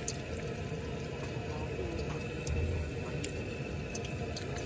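Knife cutting fried pempek fish cakes on a wooden cutting board: a few light, sharp taps of the blade on the board, with a dull bump a little past halfway, over a steady low background rumble.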